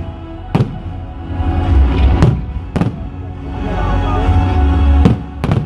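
Loud music over a fireworks display, with five sharp firework bangs cutting through it, the last two close together near the end.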